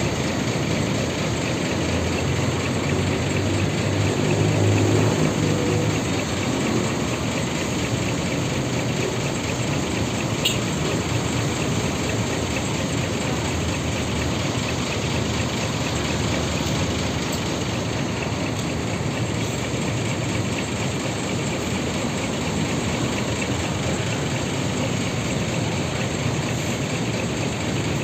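Intercity coach's diesel engine running close by: a steady low rumble under an even hiss. The rumble swells for a few seconds shortly after the start, and there is a single short click about ten seconds in.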